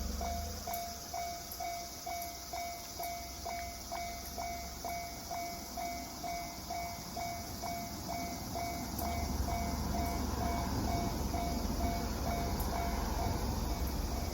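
Japanese level-crossing warning bell, the electronic JR standard tone, dinging steadily at about two strikes a second as the crossing activates. About two-thirds of the way in, the low rumble of an approaching train builds beneath it.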